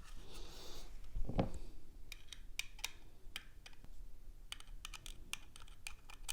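Irregular light clicks and ticks of a small T5 Torx screwdriver backing out the side mounting screws (supports) of a 2.5-inch SSD, with a duller knock about a second and a half in.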